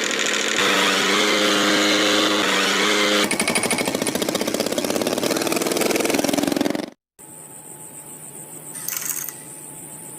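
A small motor running loud, first with a steady whine and then with a fast, even chugging pulse; it cuts off abruptly about seven seconds in, leaving a much quieter hum with a high whine.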